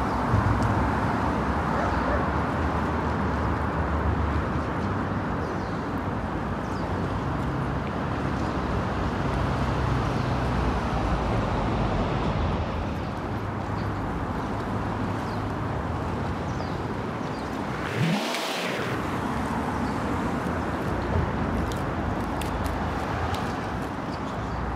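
Steady hum of road traffic, an even rumble with no pauses, and one brief whoosh about eighteen seconds in.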